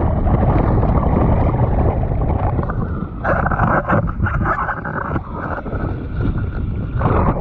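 Strong wind buffeting the microphone while wing foiling, a steady low rumble throughout. From about three seconds in a hissing rush of water and spray joins it for a few seconds.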